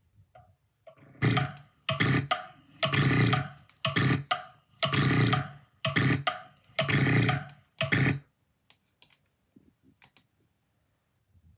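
A person snoring loudly, a run of rhythmic snores from about a second in until about eight seconds, each longer snore followed by a short one roughly every two seconds.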